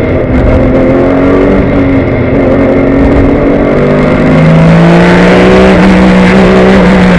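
2003 Porsche 996 GT3 Cup's flat-six race engine heard from inside the cockpit under racing load. The revs hold, then climb steadily as the car accelerates from a little past halfway, getting louder.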